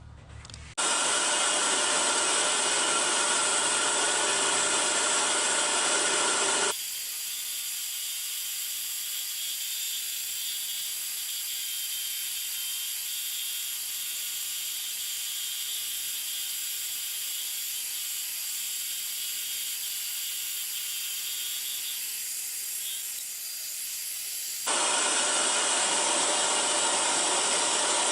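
Hegner scroll saw running and cutting birch plywood, a steady mechanical buzz with a constant pitch. The sound shifts abruptly to a quieter, thinner version about 7 s in and back to the fuller, louder one near the end.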